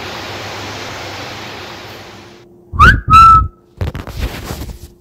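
Steady rushing water of a forest stream, fading out about halfway through. After a cut comes a short, loud whistle that slides up and then holds one note, followed by a few light knocks.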